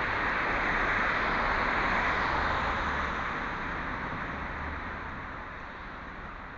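A car passing by: tyre and road noise swells over the first couple of seconds, then fades away as it goes.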